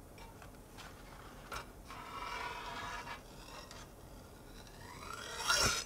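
Metal spatula scraping against the tin's metal base as it is worked under a tart's baked crust. A few light clicks come first, then a scrape about two seconds in, and near the end a louder scrape that rises in pitch and ends in a knock.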